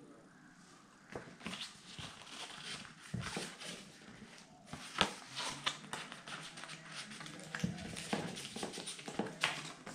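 Paper and thin card rustling and crinkling as a card booklet and a folded paper insert are lifted and handled on top of a packaging box, with small scrapes and clicks. It starts about a second in, with a few sharper clicks about halfway and near the end.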